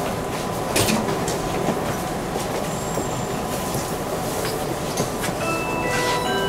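Interior running noise of a JR West 323 series commuter train drawing into a station, with occasional clicks from the rails. Near the end a chiming melody of stepped tones begins.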